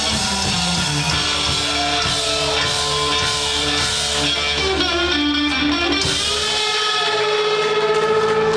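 Live band music led by guitar. Near the end the low end drops away and a single held note rings on.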